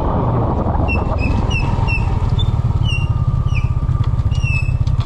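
Motor scooter engine running with a rapid low flutter, over which come about eight short high chirps.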